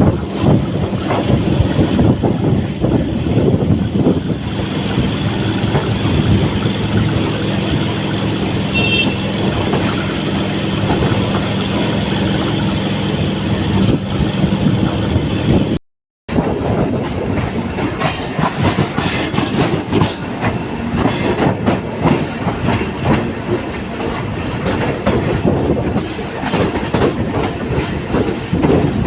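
Indian Railways EMU train running at speed: wheels rattling and clattering over the track, with a steady low hum. The sound cuts out for a moment about halfway through and then carries on.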